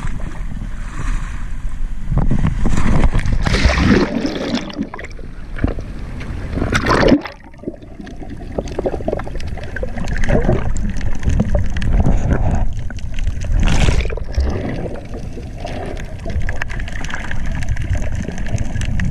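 Seawater splashing and gurgling close to the microphone, with louder splashes about four, seven and fourteen seconds in. The sound goes briefly dull and quieter just after the seven-second splash.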